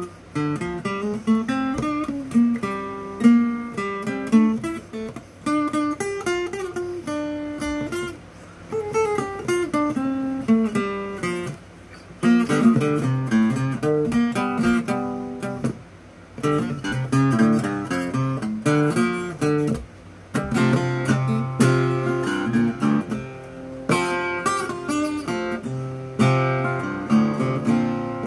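Flatpicked cutaway acoustic guitar playing a fast single-note solo in G major. Runs of quick notes come in phrases, with short breaks every few seconds. Fuller chords and bass notes join in the latter part.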